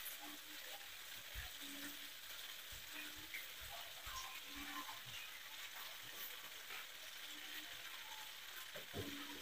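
Sliced bitter gourd and a freshly cracked egg frying in oil in a pan: a quiet, steady sizzle with scattered faint pops.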